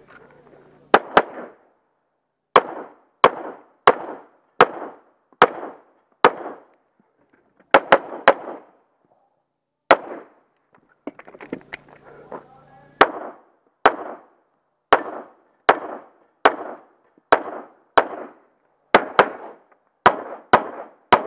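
Semi-automatic pistol fired shot after shot, about two dozen shots, often in quick pairs, each crack followed by a short ringing echo. There is a gap of about three seconds roughly ten seconds in.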